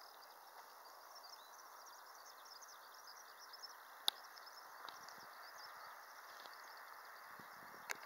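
Faint summer-evening field ambience: a steady hiss with many quick high chirps from insects, and a single sharp click about four seconds in.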